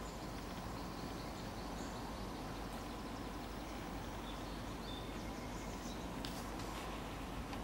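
Steady outdoor background hiss with a few faint, short, high bird chirps in the middle.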